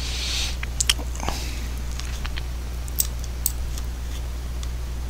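A steady low hum with a handful of sharp, scattered clicks over it.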